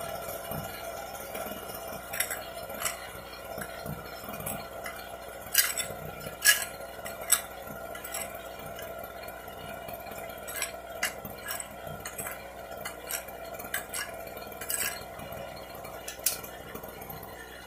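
Angle grinder disc dragged backwards across concrete so the grinder spins in reverse, an attempt to flash the field of a portable generator that has no output: irregular sharp clinks and scrapes, the loudest about six to seven seconds in. Under them is a faint steady hum from the generator's small two-stroke engine running.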